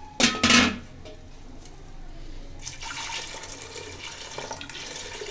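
Water poured from a steel vessel into an aluminium pressure cooker over dry dal, a steady splashing pour through the second half. Shortly after the start come two loud knocks, louder than the pour.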